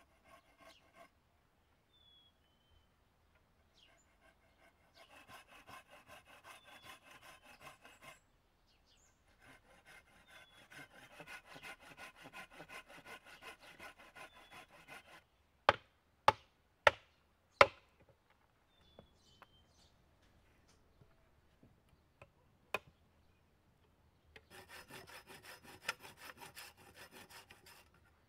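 Folding pruning saw cutting a notch into a round wooden pole, in three runs of quick back-and-forth strokes with pauses between. About halfway through, four loud sharp knocks come in quick succession, and one more single knock follows a few seconds later.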